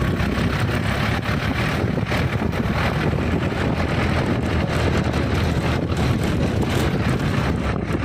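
An off-road vehicle driving along a rough dirt track: steady engine and road noise with scattered knocks and rattles, and wind buffeting the microphone.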